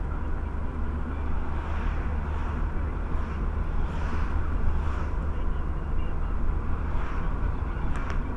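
Steady low rumble of a car's engine and tyres on the road, heard inside the moving car's cabin, with a brief click near the end.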